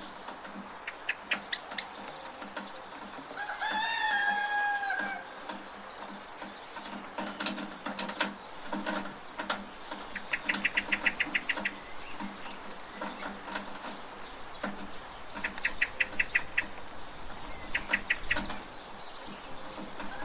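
Birds calling: one long call, falling at its end, a few seconds in, and several bursts of rapid repeated notes later on, over a steady background hiss.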